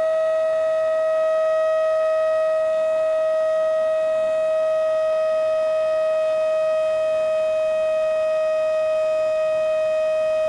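A loud, steady whine held at one pitch, with a row of overtones above it and no change in pitch or level.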